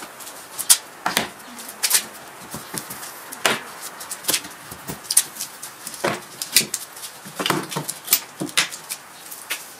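Homemade wooden folding table being folded up by hand: about a dozen sharp, irregular wooden knocks and clacks as the legs swing in and the hinged plywood halves close against each other.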